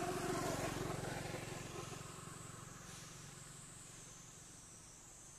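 A motor vehicle's engine hum fading away as it moves off. A steady high buzz runs on behind it.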